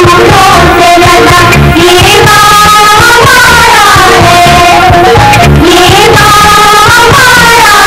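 Background song: a voice singing a melody over a drum beat.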